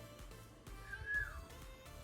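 A short, faint meow-like call from a pet cockatoo about a second in, holding a pitch and then falling, over quiet background music.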